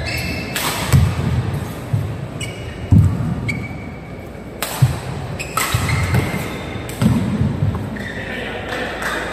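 Badminton rally: rackets striking the shuttlecock about every second or two, with footsteps thudding and shoes squeaking on the court, echoing in a large hall.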